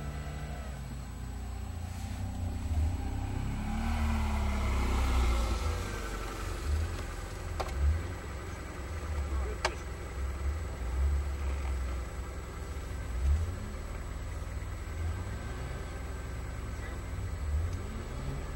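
Lada Niva's four-cylinder engine revving up and down as the stuck car tries to drive out of deep mud ruts, its wheels spinning in the mud. A couple of sharp clicks about halfway through.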